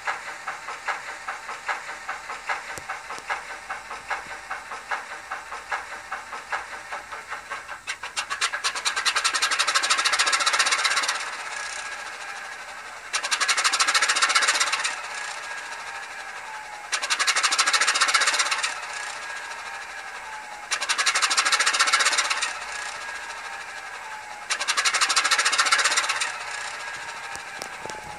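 Graham Farish N gauge Class 25 model's DCC sound decoder (SWD multi-start sound file) playing a diesel engine sound through the model's small speaker. A rapid rhythmic engine beat runs for about eight seconds. After that, loud bursts of hissing about two seconds long come roughly every four seconds over a quieter running sound.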